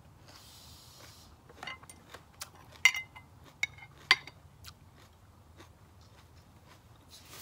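Metal spoon and fork clinking and scraping against a bowl of salad while food is scooped up: a scattered handful of sharp clinks over a couple of seconds, the loudest about three and four seconds in.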